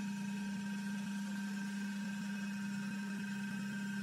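A steady mechanical hum with one constant low tone and fainter higher tones over a light hiss, unchanging throughout.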